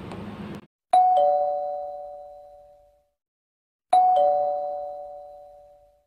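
A two-note ding-dong doorbell chime, a higher note then a lower one, sounds twice about three seconds apart, each time ringing out and fading over about two seconds.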